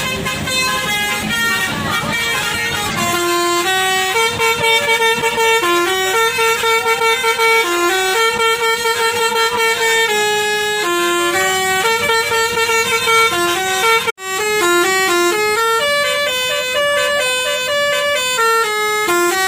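Bus telolet horn, a multi-tone musical air horn, playing quick runs of short stepped notes as a tune. A low rumble sits under the first few seconds. The horn cuts off abruptly about 14 seconds in and starts again at once.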